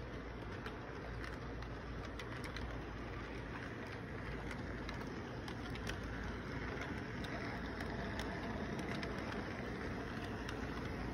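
Model train rolling past on its track: a steady running rumble with many light, irregular clicks from the wheels on the rails, a little louder from about six seconds in as the container cars pass close by.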